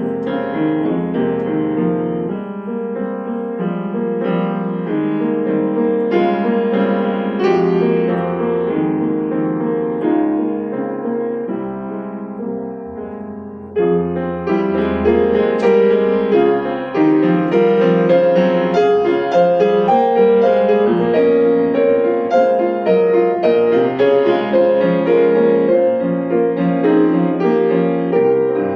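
Solo piano playing a gentle original instrumental piece. The playing grows softer toward the middle, then a louder, fuller passage comes in abruptly about halfway through.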